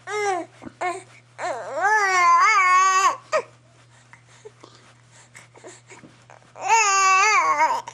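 Baby making high-pitched drawn-out vocal sounds: a short cry-like note at the start, a long wavering one, and another near the end.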